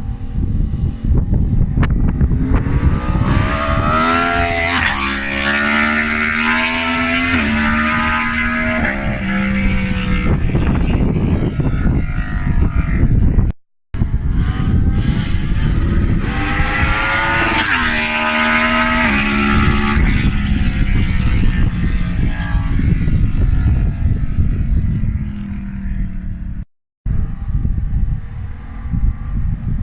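Yamaha MT-10's 998 cc crossplane inline-four, on a decat pipe with the stock slip-on, accelerating hard past twice. The engine note climbs in short steps through several upshifts and drops in pitch as the bike goes by, with a cut to silence between the passes.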